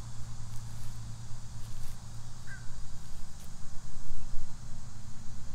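Outdoor ambience: a steady low rumble with one short bird chirp about two and a half seconds in.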